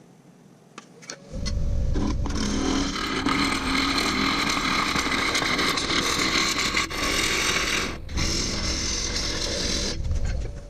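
Wood lathe starting up and spinning a walnut workpiece with a low rumble, while a tool scrapes against the turning wood. The scraping breaks off briefly near the end and resumes, then the lathe shuts down.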